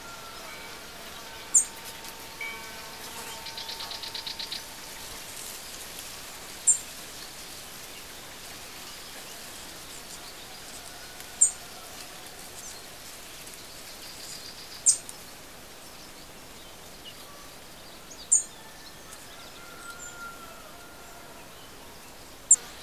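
Birds chirping: a sharp, high chirp comes every few seconds over a steady hiss of outdoor ambience, with a brief fast trill about three seconds in.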